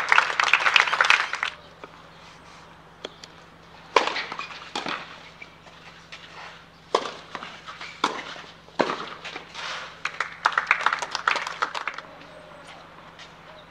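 Short bursts of scattered clapping from a small crowd, at the start and again near the end, with a few single knocks in between.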